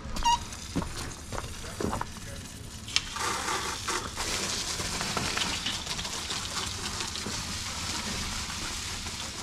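Garden hose nozzle spraying water onto a dual-sport motorcycle: a few knocks and clicks, then a steady hiss of spray from about three seconds in.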